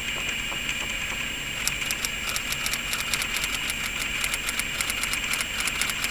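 Nitinol wire heat engine running, its wheel turning as the wire loops pass through the water tray. A dense run of irregular light clicks starts about two seconds in, over a steady high hiss.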